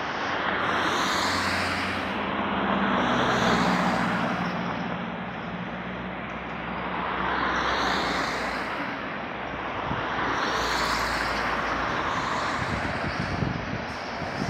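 Road traffic on a city street: vehicles passing one after another, each rising and fading, about four passes, with a low engine hum under the first half. A city bus goes by near the end.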